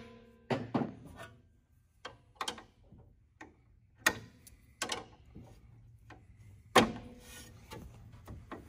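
Scattered metallic clicks and knocks from a hand ratchet and hex extractor bit working on a stripped hex screw in a planer's blade clamp, with one louder knock near the end.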